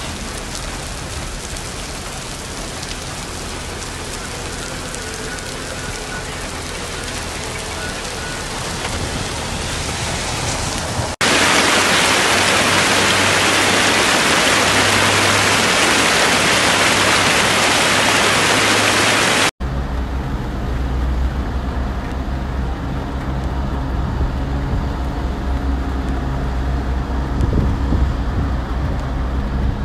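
Heavy rain falling on a wet road. About a third of the way in it cuts to a louder, brighter rush of rainwater pouring down a rocky slope. About two-thirds of the way in it cuts again to duller rain with a low rumble underneath.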